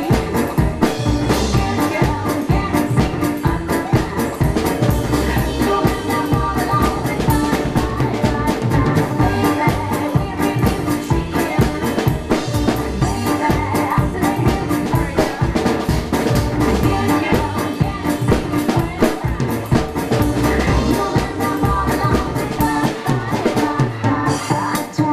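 Drum kit played live in swing style, with snare, bass drum and cymbals, along to a recorded electro swing track. The drumming is fast and busy, with strokes coming many times a second over the music.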